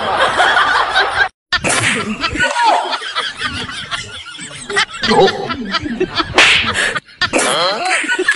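Laughing and snickering, broken by a brief silence about one and a half seconds in.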